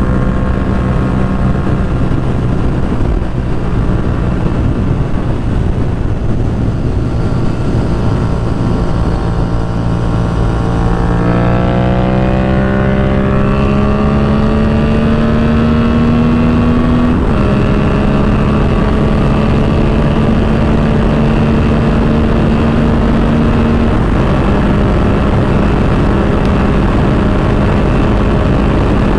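Yamaha FZ-07's 700 cc parallel-twin engine, breathing through a Yoshimura R77 full exhaust, pulling hard on a top-speed run. The engine holds steady revs, climbs in pitch from about 11 seconds in, and drops sharply at an upshift around 17 seconds. It then holds high steady revs over a constant rush of wind.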